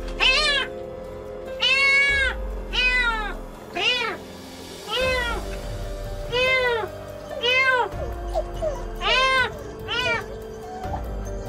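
A trapped kitten meowing in distress, over and over, about once a second, each call short and high-pitched.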